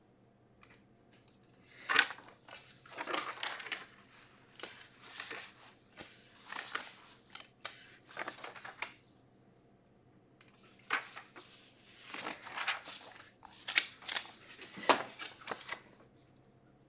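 Crinkling and rustling in irregular bursts, as of material being handled.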